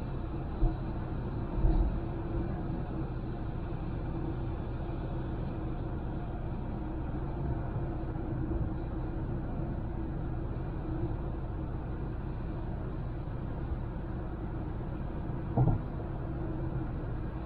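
Honda Civic driving at a steady pace: a steady rumble of road and engine noise with a low hum. A few brief thumps come through, near the start and again near the end.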